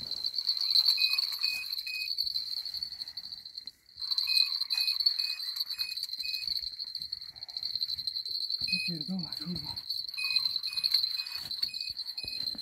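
Night insects chirring steadily at a high pitch, with short evenly spaced chirps over it. The chirring drops out for a moment about four seconds in. A brief low voice-like sound comes about nine seconds in.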